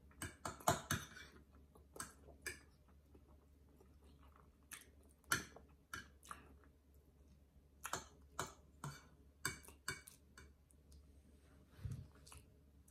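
A man chewing food, with short sharp clicks scattered irregularly through, some from a metal fork on a plate.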